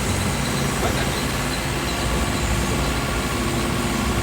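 Heavy diesel machinery running steadily with a low engine hum.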